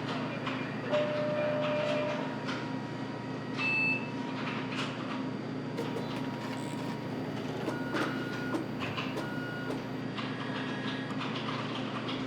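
Busy office ambience: a steady hum under scattered clicks and knocks, with a few short electronic tones and beeps.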